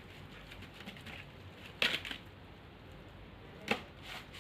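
Quiet handling of homemade slime as it is spread out flat by hand, with two brief sharp taps, one a little under two seconds in and one near the end.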